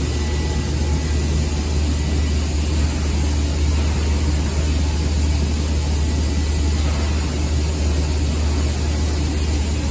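Trumpf TruLaser 1030 CNC laser cutter running while cutting sheet metal: a steady, unchanging low hum with an even hiss over it.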